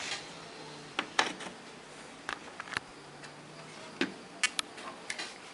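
Irregular light clicks and knocks from handling a small plastic-boxed TV speaker against the television's sheet-metal back panel, about ten in all, with a close pair about a second in and a quick cluster near the end.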